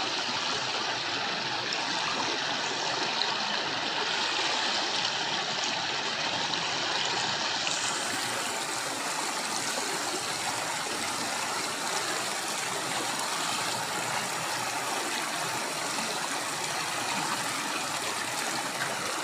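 River water flowing: a steady rush of running water that turns brighter and more hissy about eight seconds in.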